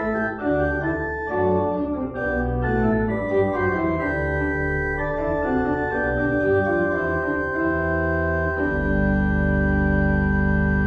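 Pipe organ playing a slow succession of full chords, settling on a long held final chord about nine seconds in.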